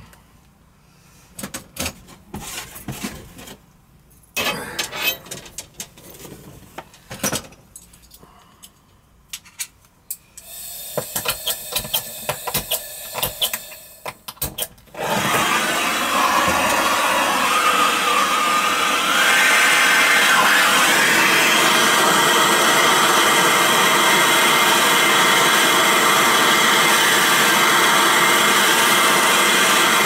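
A few scattered clicks and knocks of tools and fittings being handled, then about halfway through a soldering torch flame comes on with a sudden loud, steady hiss that carries on, growing a little louder a few seconds later, as the copper refrigerant line joints are heated for soldering.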